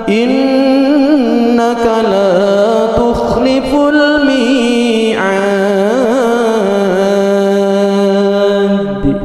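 A man's voice in melodic, chanted Qur'an recitation during prayer, with long held notes ornamented by small turns in pitch. The chant stops about nine seconds in.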